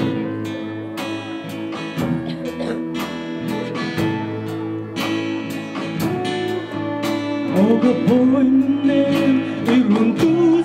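Live band music with strummed acoustic guitar and electric guitar; a man starts singing about seven and a half seconds in.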